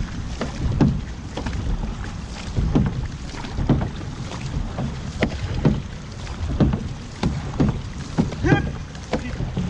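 Single-blade paddles of an outrigger canoe crew dipping and pulling through the water about once a second, each stroke a short splash, over a steady low rush of water along the hull and wind on the microphone.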